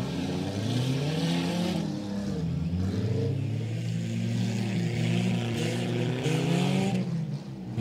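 Engines of several front-wheel-drive figure-8 race cars revving and running, their pitch rising and falling as the drivers get on and off the throttle.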